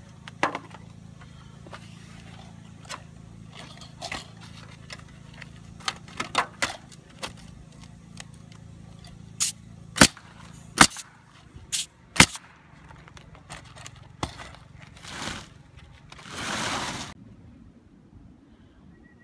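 Irregular sharp knocks and taps from roof repair work, with the heaviest few hits about halfway through. Two short scraping or rushing noises follow near the end, the second lasting about a second.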